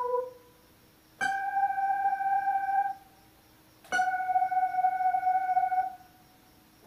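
Electronic keyboard playing a synth lead voice slowly, one key at a time: two separate held notes of about two seconds each, the second a little lower, with short pauses between them.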